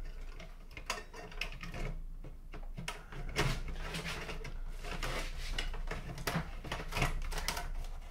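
Hands working inside a partly dismantled mini hi-fi: irregular clicks, taps and scraping of plastic and metal parts being handled and fitted.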